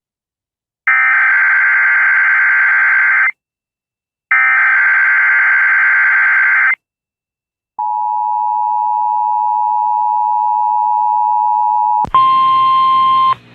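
Emergency Alert System tones for a Tornado Watch: two identical bursts of screechy SAME header data, each about two and a half seconds, then the steady two-tone EAS attention signal for about four seconds. About twelve seconds in it gives way to a shorter, buzzier tone.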